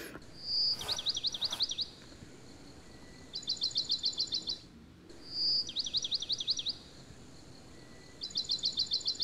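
A songbird singing high, quick trilled phrases about a second long, one every two to three seconds, alternating between a whistled note run into rapid falling notes and a fast string of chirps.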